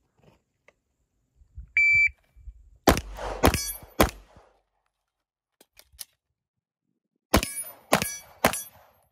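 A shot timer beeps once, then a pistol fires three shots about half a second apart. Light clicks of a magazine reload follow, then three more shots.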